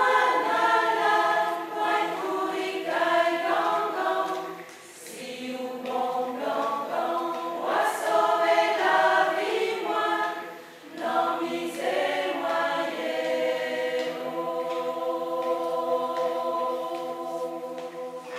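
Mixed choir of men and women singing in harmony, in phrases broken by short pauses, then holding a long final chord that fades away near the end.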